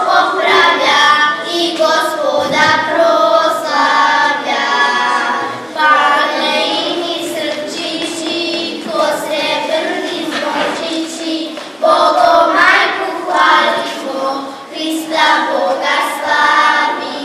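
A small group of girls singing unaccompanied into a microphone, in phrases a few seconds long with short breaks between them.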